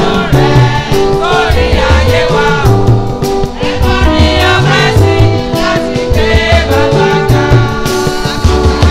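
Yoruba gospel song: voices singing over a moving bass line and a steady beat.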